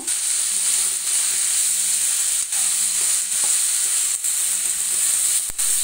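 Shallots, garlic, dried red chillies and freshly added tomatoes sizzling in groundnut oil in a steel kadai, stirred with a spoon. The frying is steady, with a few faint ticks of the spoon, as the tomatoes are sautéed until their water cooks off.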